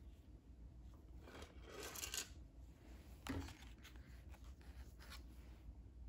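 Paper pages and card flaps of a handmade junk journal rustling quietly as they are turned and handled, with a short swish about a second and a half in and a soft knock past the middle.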